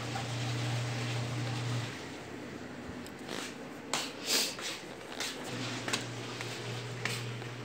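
Rustling handling noise from a handheld phone being carried while walking, with a string of short brushes and scrapes from about three seconds in. Under it a steady low hum drops out about two seconds in and comes back about five and a half seconds in.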